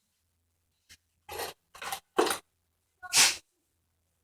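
A person sneezing: a few short breathy bursts from about a second in, then one loud sneeze about three seconds in.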